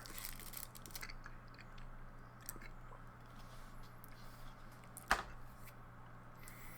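A person quietly chewing a piece of sea salt caramel dark chocolate, with faint crackly clicks in the first second and one sharper click about five seconds in. A steady low hum runs underneath.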